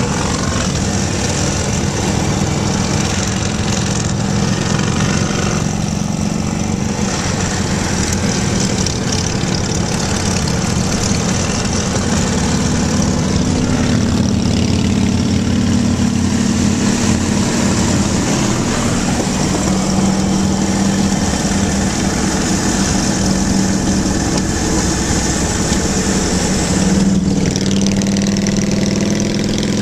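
Cruiser motorcycle engines running at highway speed alongside the car, blended with steady wind and road noise. The engine note shifts up and down a few times.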